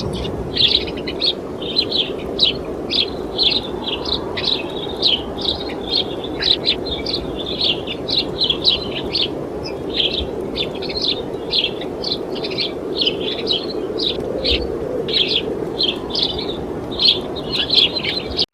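Many small birds chirping in quick, overlapping calls without a break, over a steady low rush of wind.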